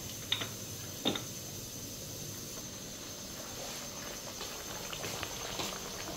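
Sweet flour-and-jaggery tikkis frying in a pan: a faint steady sizzle, with small crackles in the second half. Two sharp clicks come about a third of a second and a second in.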